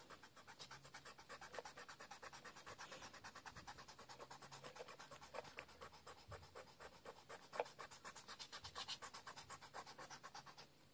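Pencil-top rubber eraser rubbing quickly back and forth over paper, a faint scratchy rhythm of about five strokes a second, erasing pencil sketch lines.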